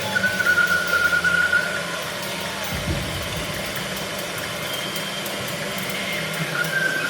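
Improvised experimental turntable-and-drums performance: a noisy, engine-like drone with a steady high whistling tone over a low hum. The whistling tone fades out about two seconds in and comes back near the end, and a single low thump lands about three seconds in.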